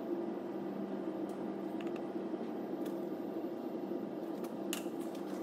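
Steady mechanical hum, like a fan or machine running in a workshop, with a few faint light clicks, the clearest near the end.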